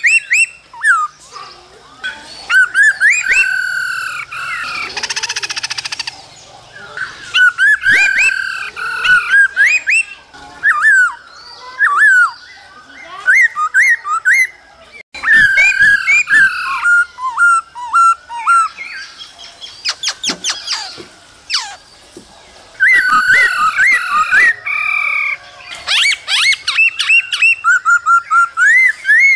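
Black-throated laughingthrush singing: loud phrases of quick, varied whistled notes that swoop up and down, broken by short pauses, with a harsher, noisier passage about five seconds in.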